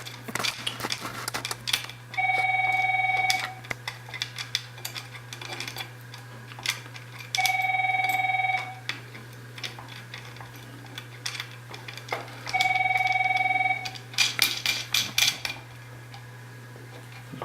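Telephone ringing three times, each ring a steady electronic tone about a second long, about five seconds apart. Between the rings come small clicks and taps of clock-motor parts being handled, over a steady low hum.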